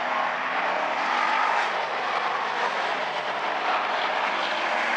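A field of hobby stock race cars lapping the oval together, their engines blending into a steady drone.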